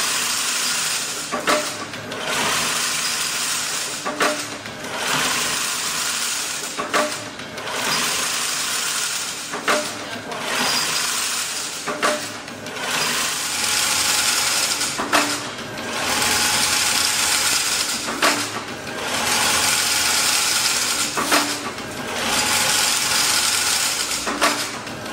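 Automatic chain link fence weaving machine running in steady cycles: a sharp clank roughly every three seconds, with a continuous whirring hiss between clanks.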